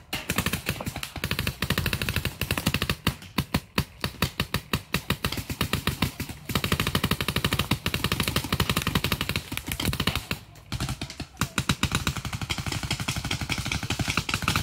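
Adrenalin Featherlite Angel LCD electronic paintball marker firing long, rapid strings of shots, many per second, with brief pauses about six and ten and a half seconds in.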